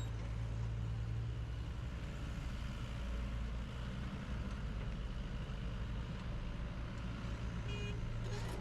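Engine of a heavy construction machine running steadily at low revs, a constant low hum.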